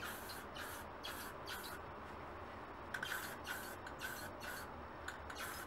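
Rust-Oleum aerosol spray paint can hissing in quick short bursts, a light dusting of paint, with a pause of about a second near the middle.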